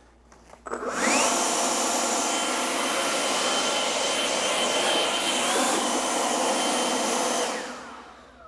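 Greenworks 80V battery-powered leaf blower spinning up about a second in with a rising whine. It runs steadily with a loud rush of air, then winds down near the end.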